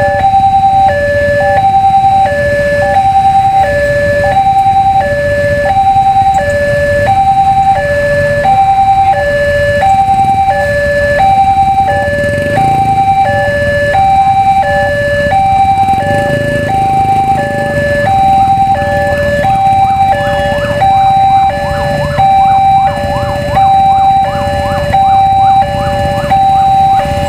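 Railway level-crossing warning alarm sounding its electronic two-tone signal, a steady high-low alternation of about one pair every 1.2 seconds, warning that a train is coming.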